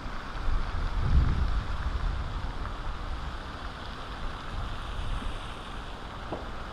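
Wind buffeting the microphone in gusts, with the strongest gust about a second in, over a steady hiss.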